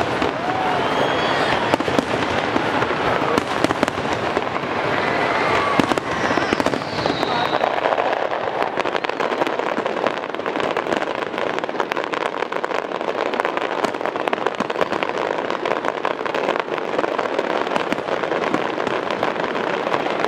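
Fireworks display: a dense, continuous crackling of many small bursts.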